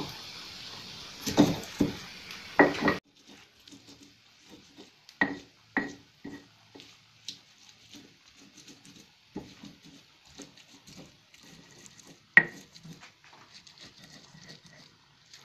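Stone pestle (ulekan) grinding and crushing wet spice paste on a stone mortar (cobek): irregular knocks and scrapes of stone on stone, with one sharper knock about twelve seconds in. A steady hiss under the first three seconds cuts off suddenly.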